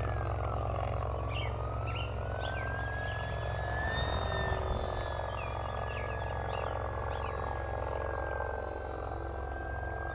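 Electric motor and propeller of an FMS 1500mm Cessna 182 RC plane running on 4S power in flight: a high whine that drops in pitch over the first second, climbs back over the next few seconds as the throttle or distance changes, then holds steady. Short high chirps sound over it.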